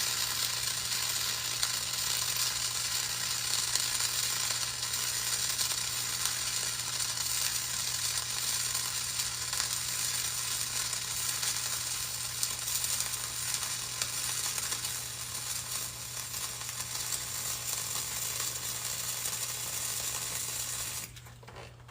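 Flux-cored arc welding on .045 wire at about 25 volts: the arc gives a steady, even crackling sizzle over a low steady hum, which the welder takes as a sign of wire speed, voltage and angle set right. The arc stops about 21 seconds in.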